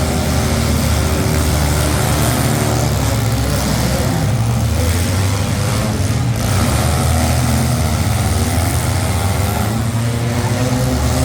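Demolition derby cars' engines running loudly and steadily, their pitch drifting a little.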